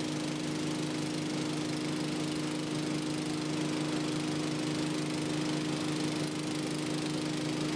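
6.5 hp petrol engine of an Evolution EVO system running steadily at constant speed, driving the dirty water pump.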